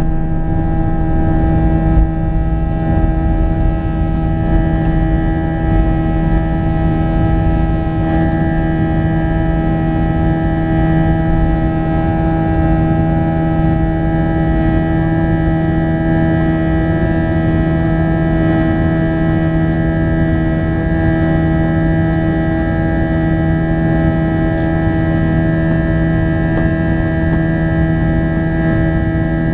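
Cabin noise of an Airbus A321-231 climbing out after takeoff: its IAE V2500 turbofan engines at climb power make a steady drone, several held tones over a low rumble. A short knock comes about two seconds in.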